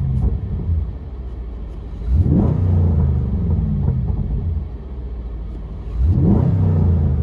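2011 Chevy Camaro SS 6.2-litre V8 revved in park through a true dual exhaust with Flowmaster Hushpower mufflers: two quick blips, about two seconds in and about six seconds in, each rising sharply and then dropping back toward idle. It opens as a previous rev falls away.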